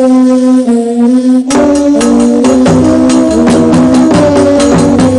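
Song by a Malian band: a few long held notes, then about a second and a half in the full band comes in with a fast, even beat and plucked acoustic guitar.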